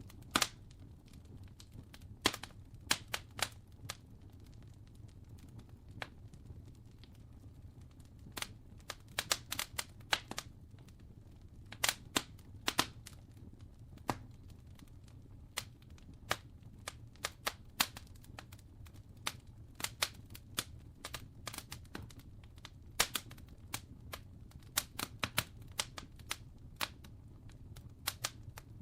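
Wood fire crackling: irregular sharp pops and snaps, sometimes in quick clusters, over a low steady rumble.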